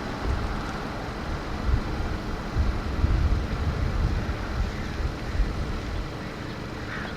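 Wind buffeting the microphone in uneven gusts, a low rumble over a steady rush of noise.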